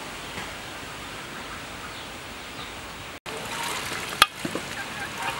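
A steady, even outdoor hiss, then after an abrupt cut about three seconds in, water pouring and dripping back into an aluminium basin as a handful of washed grasshoppers is lifted out, with one sharp click about a second after the cut.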